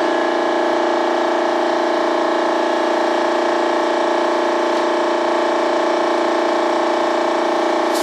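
Steady machine drone at a constant pitch, holding one level without change.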